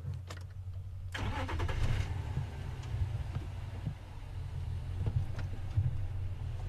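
Safari game-drive vehicle's engine running with a low rumble, its noise rising about a second in as it revs and moves on.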